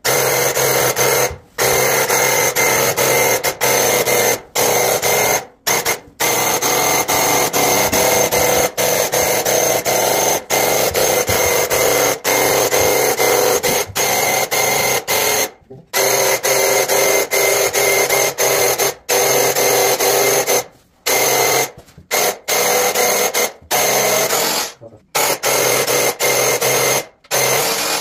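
Graco Ultra QuickShot airless paint sprayer running: its pump buzzes loudly while the trigger is held, in long stretches broken by short pauses as the gun is released, spraying paint.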